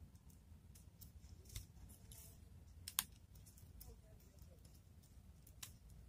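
Faint, scattered clicks and taps of a small screwdriver and wire ends on the terminal screws of a plastic-bodied magnetic contactor, with one sharper click about three seconds in.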